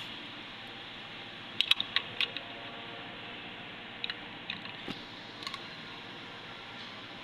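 Light metallic clicks and clinks of hand tools and parts being handled on an engine during timing-chain work. They come in small clusters about a second and a half in and again around four to five and a half seconds, over a steady background hiss.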